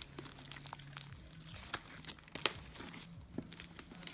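Homemade glittery glue-and-detergent slime being squished and stretched by hand: irregular sticky crackling and popping, with a few sharper clicks.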